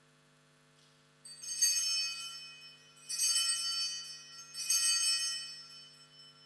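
Altar bells rung three times in quick succession, each ring a bright jangle that fades before the next, marking the elevation of the consecrated host at Mass.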